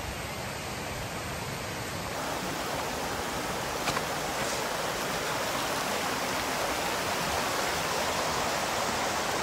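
Mountain stream flowing over rocks: a steady hiss of running water, with a single sharp tap about four seconds in.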